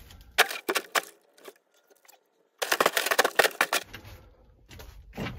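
Two short bursts of rustling and clicking handling noise, about two seconds apart, the first made of separate clicks and the second denser.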